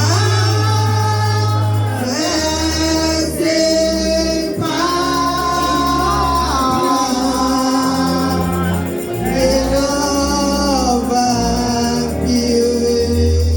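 Gospel music with voices singing together over sustained bass notes and steady high cymbal or tambourine shimmer.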